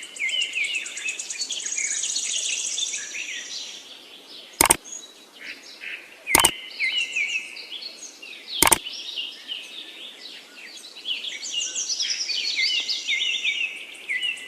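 Birds chirping and twittering in a dense, busy chorus of quick repeated chirps. Three sharp clicks cut through it in the middle, about two seconds apart.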